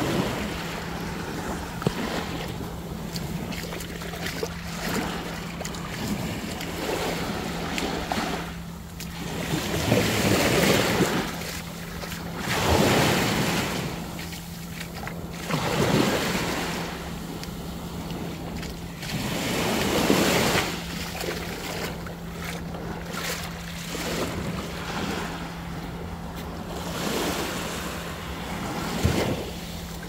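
Small waves washing up onto a sandy beach, each swell of surf rising and falling every few seconds, with wind on the microphone and a steady low hum underneath.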